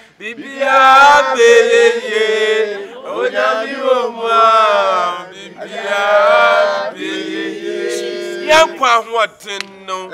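A group of men and women singing a chant together, a man's voice leading with long, drawn-out held notes; near the end the singing breaks into shorter phrases.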